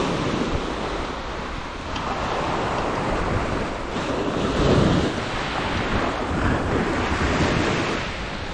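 Small waves breaking and washing up a shingle beach, with wind on the microphone; the surf swells and eases every couple of seconds, loudest about halfway through.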